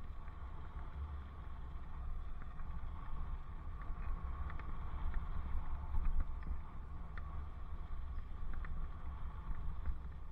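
Steady low wind rumble on a helmet camera's microphone during a bicycle ride, with riding noise and scattered light ticks.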